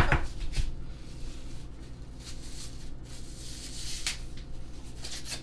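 A fork scraping and tapping thick sour cream out of a small plastic cup: a few quick clicks at the start, faint scrapes, and one more click about four seconds in, over a low steady hum.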